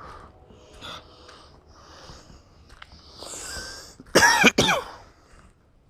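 A man coughs twice in quick succession about four seconds in, just after a breath in.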